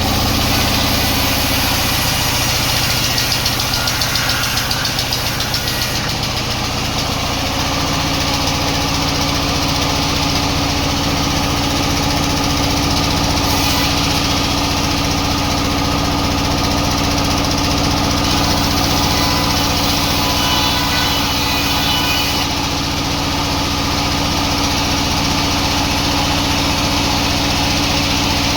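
Sawmill engine running steadily, a constant loud drone.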